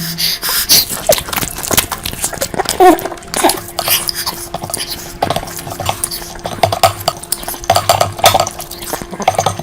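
Close-miked eating sounds of curry being chewed, with many quick mouth smacks and clicks and dishes clinking as food is taken.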